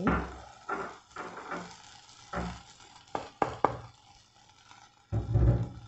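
Wooden spoon stirring and scraping rice in a pot as it is sautéed in oil, a series of short scrapes and knocks against the pan with a faint sizzle. A dull thump comes near the end.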